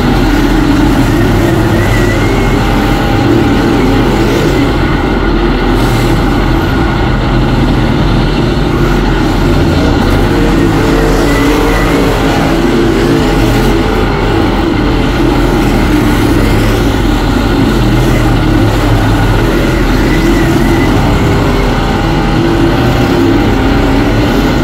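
Several dirt-track modified race cars' V8 engines running hard around a dirt oval, loud and steady without a break.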